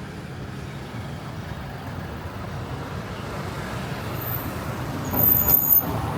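Motor vehicle running with a steady low rumble that slowly grows louder, and a brief high squeal with a click about five seconds in.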